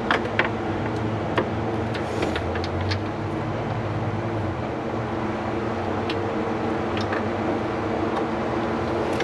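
Steady mechanical hum of shop machinery, with scattered sharp metallic clicks and taps from hand tools working in an engine bay.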